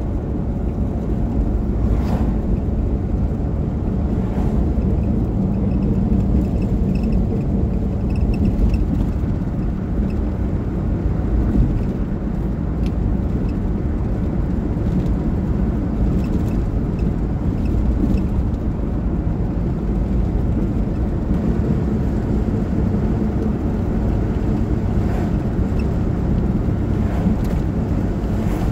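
Steady low rumble of a car driving at road speed, heard inside the cabin: tyre and engine noise with a few faint ticks.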